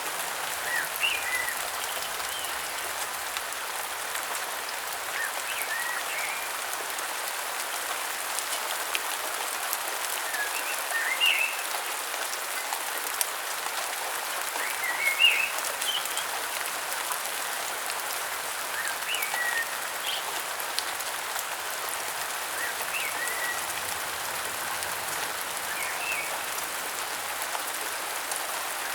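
Steady rain falling, with short bird chirps recurring every few seconds over it.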